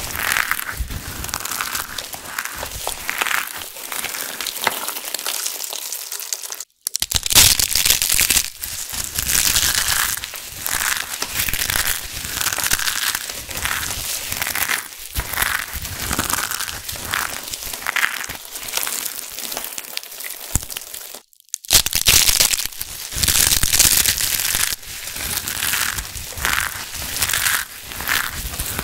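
Dry, brittle black soap shavings crushed and rubbed between the palms: a dense crunchy crackling that breaks off for an instant twice, about seven seconds in and again about twenty-one seconds in.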